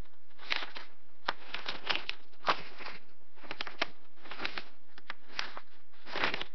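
Paper being handled and crinkled: a string of short, irregular rustles, roughly one or two a second.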